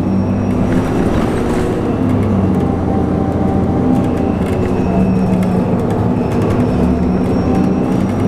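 Orion VII NG diesel-electric hybrid city bus under way, heard from inside: a steady drivetrain hum with faint high steady tones and light rattles.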